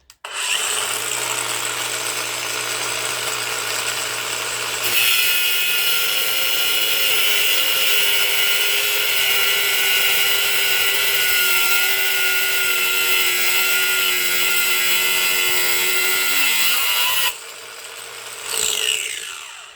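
Macallister 18V cordless angle grinder starting up and running free for about five seconds. It then cuts through 10 mm steel threaded bar with a cutting disc, louder and noisier, for about twelve seconds. Near the end the disc comes off the metal and the motor winds down, falling in pitch.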